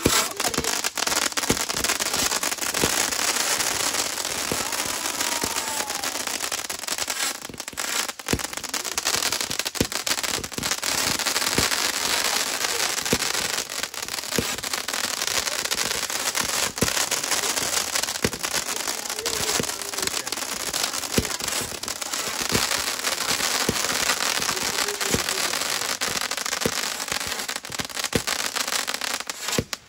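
Large fireworks display going off: a dense, continuous crackle packed with sharp bangs, which cuts off suddenly near the end.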